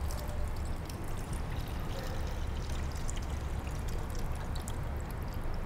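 Blended Bermuda grass (arugampul) juice poured steadily from a steel jug through a fine steel mesh strainer into a steel bowl, trickling through the mesh.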